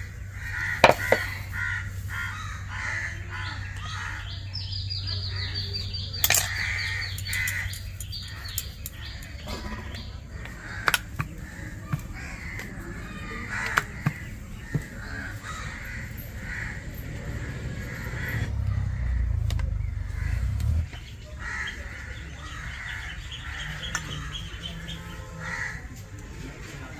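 Crows cawing repeatedly, with a few sharp taps of a knife and rolling pin on a stone board.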